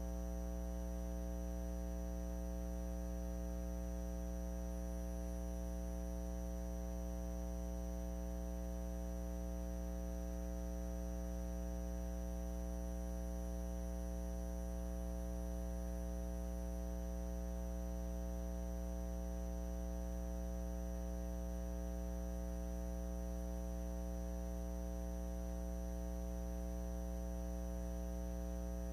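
Steady electrical hum: a low drone with a stack of constant higher tones above it, unchanging.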